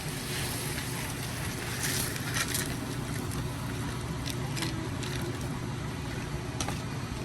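Steady rushing kitchen noise with a low hum, broken by a few light clicks and rattles of cookware.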